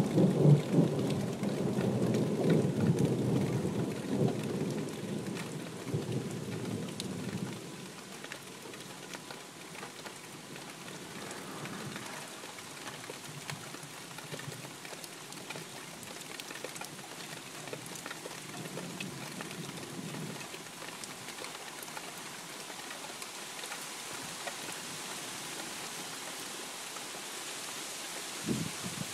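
Thunder rumbling and dying away over the first several seconds, over steady rain falling throughout. A fainter roll of thunder comes about two-thirds of the way in, and a brief low thump near the end.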